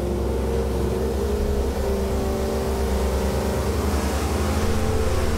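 540 cubic inch big-block V8 with a hydraulic camshaft running under load on an engine dynamometer during a power run, at around 3,400 rpm. The sound is steady and loud.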